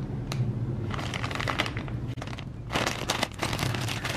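Clear plastic parts bag crinkling in the hands in irregular bursts, busiest about three seconds in, over a low steady hum.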